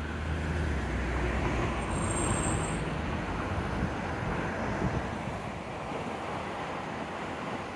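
Steady background hum of city traffic and rail-yard ambience, with a low hum that fades after about three seconds and a brief faint high-pitched tone about two seconds in.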